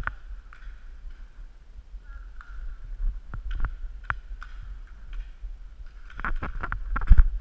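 Paintball markers firing during a game: scattered sharp pops, which thicken into rapid strings of shots near the end. Under them is a low rumble of wind on the microphone.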